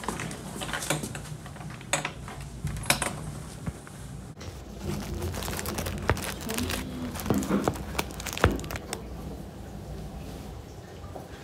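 Handling noise of a phone camera: clothing rustling and scraping against the microphone, with scattered clicks and knocks as the phone is moved about.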